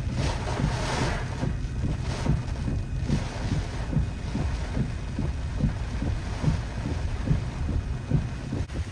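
Hurricane wind buffeting the microphone in a steady low rumbling flutter, with the hiss of wind-driven rain strongest in the first second and a half.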